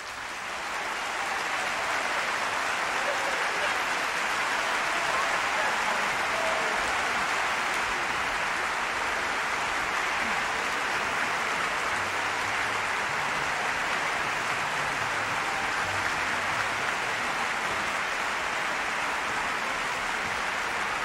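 Audience applauding a finished aria, swelling up in the first second or two, then a steady, dense clapping.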